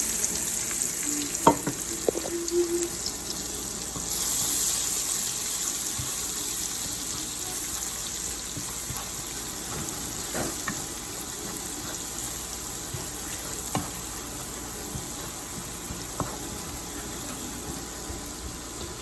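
Food sizzling as it fries in hot oil in a pan. The sizzle starts suddenly, grows louder about four seconds in, and is broken by occasional knocks of a stirring utensil.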